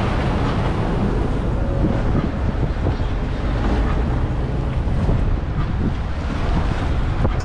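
Wind buffeting the microphone aboard a Sea Hunt Gamefish 30 center-console under way, with water rushing past the hull and the low running of its twin Yamaha 300 outboards underneath. A steady low rumble with no breaks.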